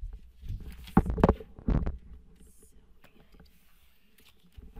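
A few dull thumps and knocks: two close together about a second in, and another just under two seconds in, with faint scattered ticks around them.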